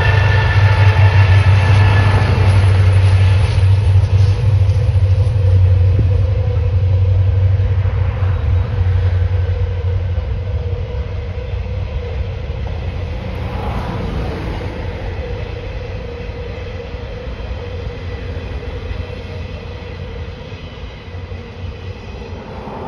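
Freight train passing: the diesel locomotives' low engine drone fades over the first few seconds as they move away, and the steady rumble of loaded container wagons rolling on the rails follows, slowly getting quieter.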